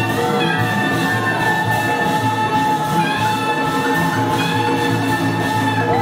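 Latin big band playing Afro-Cuban jazz: horns and saxophone holding long chords over bass and percussion.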